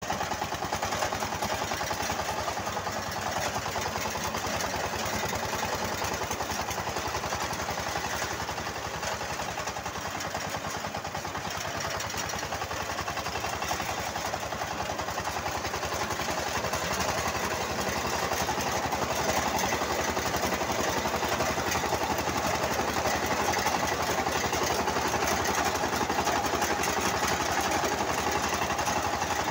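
Small engine of a self-propelled fodder cutter running steadily with an even, rapid beat while the machine drives forward and mows a standing green fodder crop.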